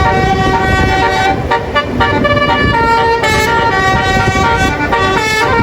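A bus's telolet basuri musical air horn playing a tune, its notes changing in quick steps, over engine and road rumble.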